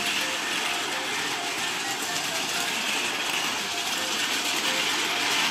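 Battery-powered Plarail toy Shinkansen trains running fast on plastic track: a steady whir of small motors and gears with the wheels rattling over the rails. Light background music plays over it.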